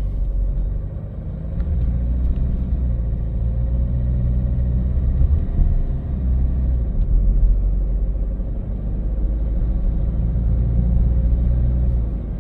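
A car being driven: steady low rumble of road and engine noise, with a faint steady hum above it.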